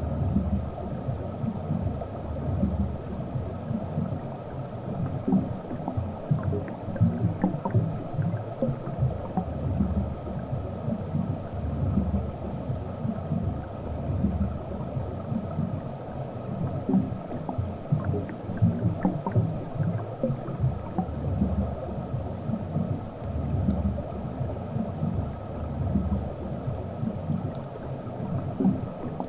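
Underwater ambience picked up by a submerged camera: a continuous, muffled low rumble of moving water that swells and fades irregularly, with faint scattered clicks.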